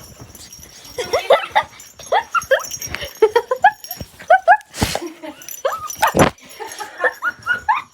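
A dog whining and yipping in many short, rising-pitched cries, one after another. Two short, sharp noisy bursts come about halfway through.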